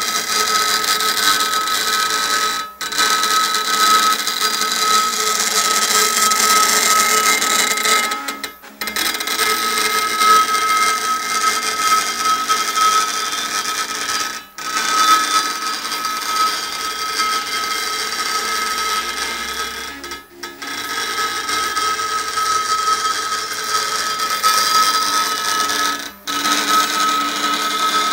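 CNC impact-engraving machine's diamond needle rapidly striking granite: a dense, steady mechanical buzz with a strong high tone running through it, breaking off for a moment about every six seconds.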